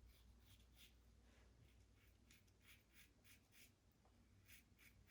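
Faint, short scratchy strokes of a Blackland Vector safety razor cutting stubble through shaving lather, about a dozen strokes in quick, irregular succession.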